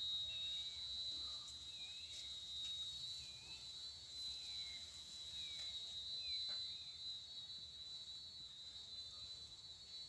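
Steady high-pitched insect buzz, with a series of short high chirps about once a second that stop about seven seconds in.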